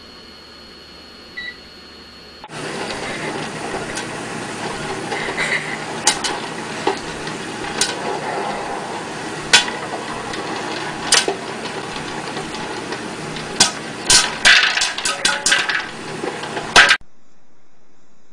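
Popcorn popping in an electric popcorn popper with a clear dome: sharp pops over a steady noise, a few at first, then coming quickly near the end before the sound cuts off suddenly.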